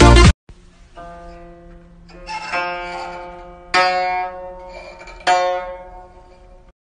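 Background music: a loud passage cuts off just after the start, then plucked-string notes are struck three times, each ringing and fading, before the music stops near the end.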